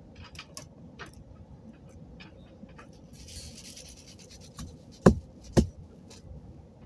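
Faint rubbing and handling of bracelet-making pieces, with small clicks and a brief rustle, then two sharp clicks about half a second apart a little after five seconds in.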